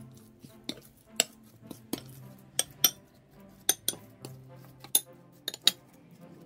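Metal spoon clinking against a glass mixing bowl while stirring a ground beef filling: about ten sharp, irregular clinks. Soft background music with held low notes plays underneath.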